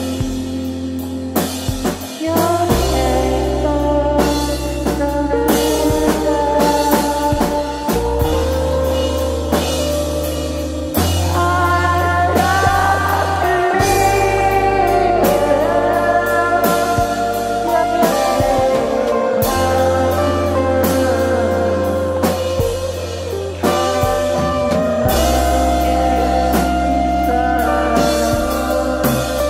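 Alternative ambient rock band music: a drum kit keeps a steady beat under layered sustained chords, with the bass note changing every few seconds.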